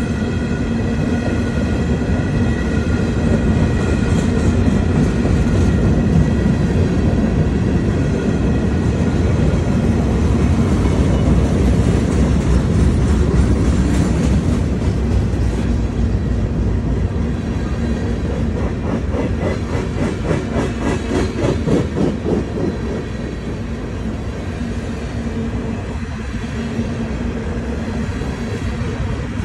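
CSX freight train rolling past, its cars' wheels rumbling steadily and clicking rhythmically over the rail joints.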